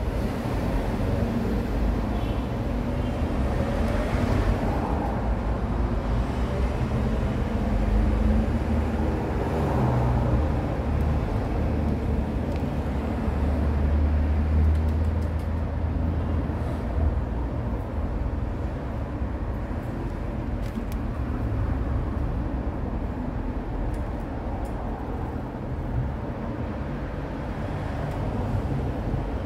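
Steady low rumble of road traffic, swelling for a few seconds in the middle as a vehicle goes by.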